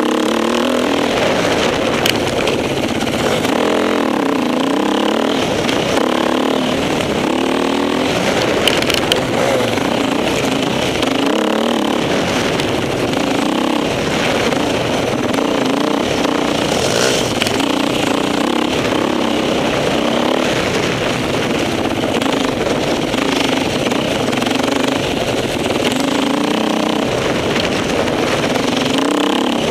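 Off-road motorcycle engine heard from on board, its pitch rising and falling every second or two as the throttle is opened and shut through the turns of a dirt track.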